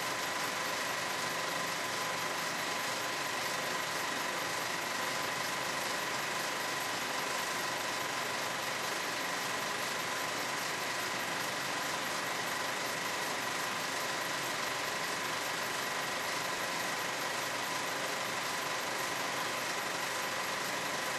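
Steady hiss with a faint, even, high-pitched whine, unchanging throughout.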